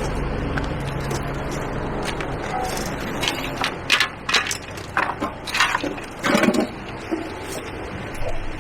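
A quick run of about eight sharp knocks and clatters over a few seconds, heard over a steady low rumble that fades during the first half.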